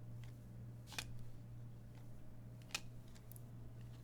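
A few sharp clicks and light rustles of trading cards being handled, the clearest click about a second in and another near three seconds, over a faint steady hum.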